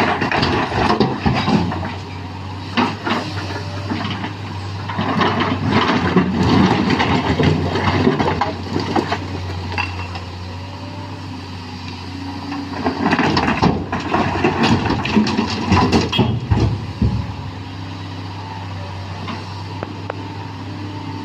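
Sany SY215C excavator's diesel engine running steadily while its bucket works broken mountain rock, with three spells of loud rock clattering and grinding: at the very start, about a quarter of the way in, and again past the middle.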